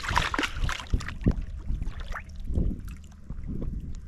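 Water splashing as a person ducks under the lake's surface, followed by water sloshing and lapping around the half-submerged microphone.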